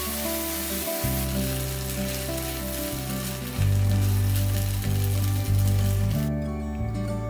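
Food frying in a hot pan, a steady sizzling hiss, which cuts off suddenly about six seconds in. Background music with steady bass notes plays throughout.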